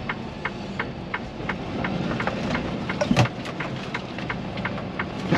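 Turn signal clicking at about three ticks a second inside a semi truck's cab, over the truck's steady engine and road noise. A louder, brief falling sweep comes about three seconds in.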